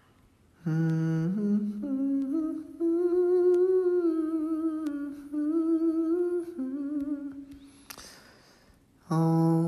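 A man humming a slow tune in long held notes that waver with vibrato, stepping up and down in pitch with short breaks between phrases. Near the end there is a breath in before the next held note.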